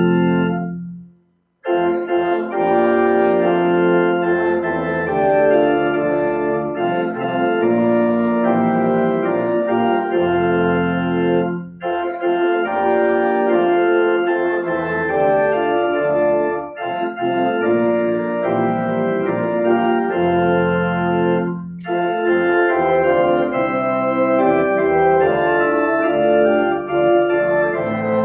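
Church organ playing a hymn in sustained chords, phrase after phrase. It drops out briefly about a second in, then resumes, with short breaks between phrases.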